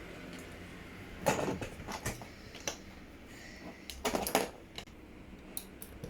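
Plastic LEGO pieces clicking and rattling as they are handled, in a few short scattered clicks with a louder clatter about four seconds in.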